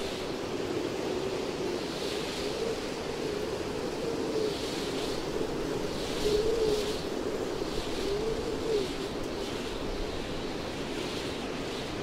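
Wind blowing through forest treetops: a steady rushing of the foliage, swelling into slightly louder gusts about six and nine seconds in.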